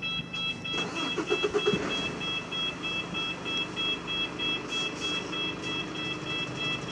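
Rapid electronic warning beeps, about four a second and two high tones at once, over the running of a heavy vehicle's engine. There is a brief pitched engine surge about a second in.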